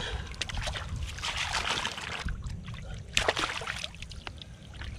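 Shallow lake water splashing and sloshing as a scaled common carp is swished back and forth by hand to rinse off loose scales, in several irregular bursts.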